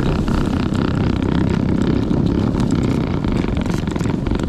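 Steady, loud rushing and scraping of a plastic sled being towed over snow, mixed with the running of the homebuilt electric tracked snow bike pulling it, driven by two NPC Black Max 3.8 HP electric motors.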